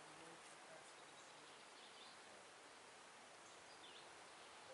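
Near silence: faint outdoor background with a few faint bird chirps.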